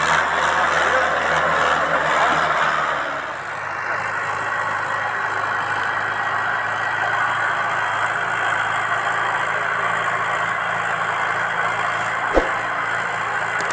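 Mahindra Arjun 555 tractor's four-cylinder diesel engine running steadily as it hauls a trolley loaded with sugarcane, with one sharp click near the end.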